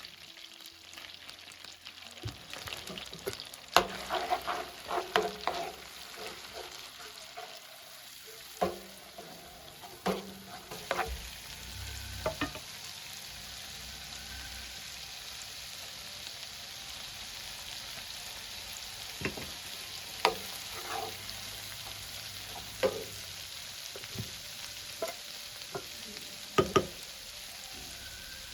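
Food sizzling steadily in a hot pan while it is stirred, with a spoon or spatula scraping and clinking against the pan in clusters and then in occasional single strokes.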